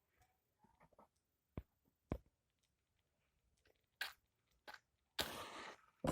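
Light clicks and knocks of glassware and cork being handled, then a brief scratchy rush lasting under a second about five seconds in.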